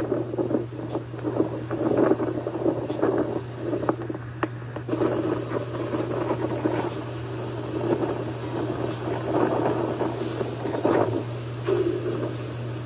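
Hurricane-force wind gusting in uneven surges, over a steady low hum.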